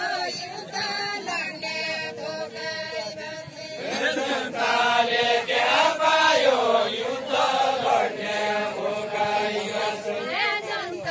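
A group of voices chanting a deuda folk song together with no instruments. The singing grows louder and fuller about four seconds in.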